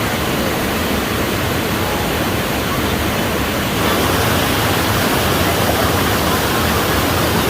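Rushing water: a loud, steady wash of noise that gets a little louder and brighter about four seconds in.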